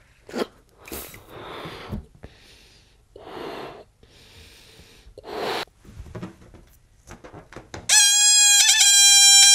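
A rubber party balloon being blown up in several puffs of breath with pauses between. Near the end, air let out through its stretched neck sets off a loud, steady, high squeal that wavers briefly just after it starts.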